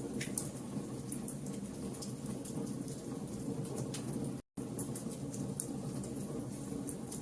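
Fire burning with a steady low rumble and scattered sharp crackles and pops. The sound cuts out completely for a split second about four and a half seconds in.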